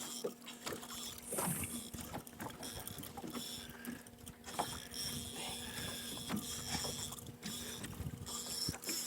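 A boat's motor humming steadily at idle, with water sloshing and scattered knocks against the hull.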